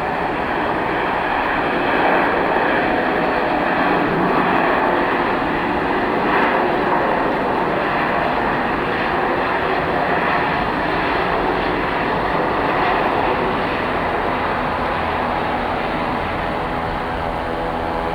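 Airliner engines running loud and steady close by, with a set of even humming tones coming through more clearly near the end.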